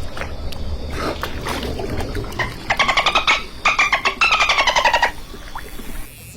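Dolphin burst-pulse calls: two rapid, buzzy pulsed squawks about three seconds in, the second longer and falling slightly in pitch, over scattered clicks and a low underwater rumble.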